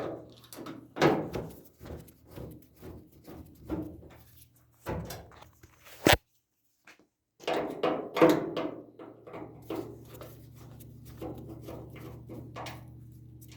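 Irregular knocks, clunks and clicks of a Whirlpool Cabrio dryer's metal panels and parts being handled during disassembly, with a sharp click about six seconds in followed by a brief gap.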